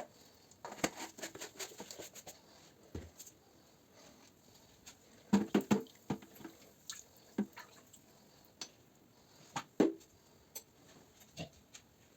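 Scattered small knocks, taps and clicks of objects being handled, with a quick run of louder knocks about five and a half seconds in and another single knock near ten seconds.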